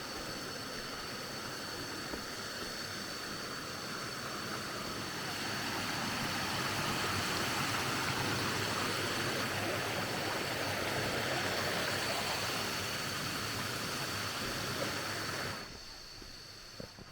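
Rushing stream water, swelling to its loudest midway and dropping off suddenly near the end, over a steady high-pitched whine.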